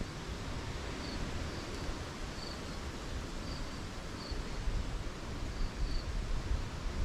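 Outdoor ambience of wind rumbling on the microphone under a steady hiss, with an insect's short high chirps repeating about once a second.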